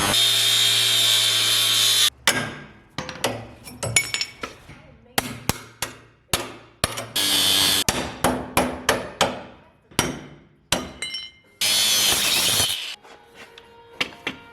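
Metal being hammered in the shop: a run of sharp, irregular hammer strikes on metal, each ringing briefly. A power tool runs steadily for the first two seconds and again briefly near the end.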